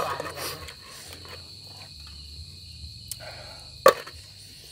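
Crickets chirping steadily. Stacked stainless steel bowls give a sharp clink right at the start and another about four seconds in, with a brief shuffle just before the second one.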